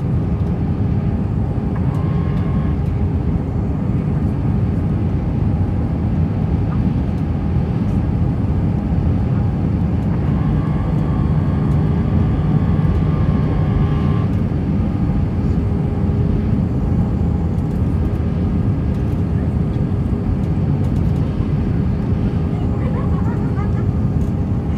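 Steady, even rumble of jet engine noise and airflow heard inside the cabin of an Airbus A319-131 on approach to land with its flaps extended. The aircraft has IAE V2500 turbofan engines. A faint steady hum runs through it, and a slightly higher tone comes and goes for a few seconds about halfway through.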